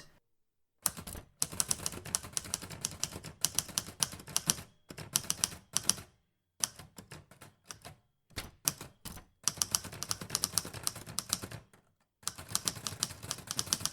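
Typewriter keys being struck in quick runs of clicks, with brief pauses between the runs.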